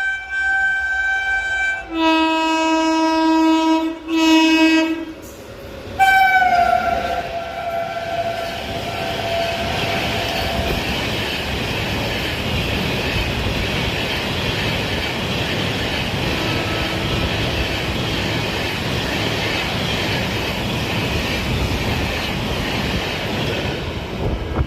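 Express train's locomotive sounding its horn in several blasts as it approaches at speed. About six seconds in, the last blast drops in pitch as the locomotive passes. Then comes a long steady rush and rail clatter of LHB coaches going by at speed.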